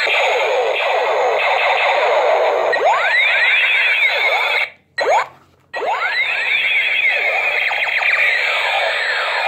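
Battery-powered light-up toy ray guns sounding together: a dense tangle of electronic laser and siren effects, sweeping up and down in pitch. It cuts out suddenly about five seconds in for about a second, with one short blip in the gap, then resumes.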